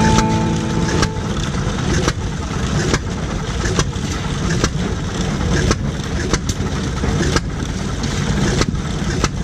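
Antique engine-driven concrete block-making machinery running: a steady low engine rumble with sharp knocks, about one a second, at slightly uneven spacing.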